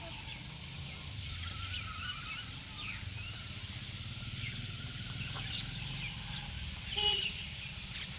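Birds calling with scattered short chirps, and one louder call about seven seconds in, over a steady low rumble.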